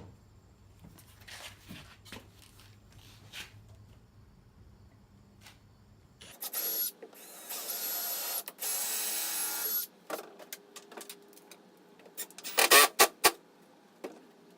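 Power tool running in several loud bursts with a high whine, about six to ten seconds in, then a quick cluster of sharp knocks. The audio is sped up in a time lapse of drilling and driving a threaded insert into a wooden desk leg.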